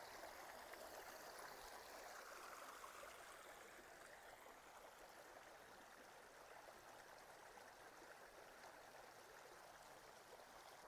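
Faint, steady rush of running stream water.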